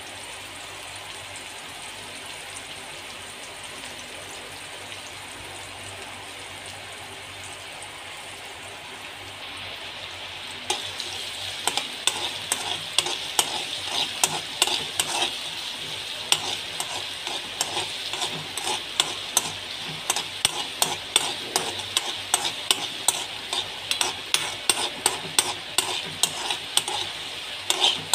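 Chopped onion sizzling in hot oil in a metal wok. From about ten seconds in, a spatula stirs and scrapes the pan, adding fast, irregular clicks and knocks over the steady sizzle.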